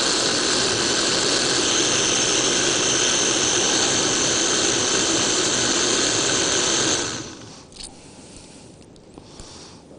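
Electric countertop blender running steadily as it blends fruit juice, then switched off about seven seconds in.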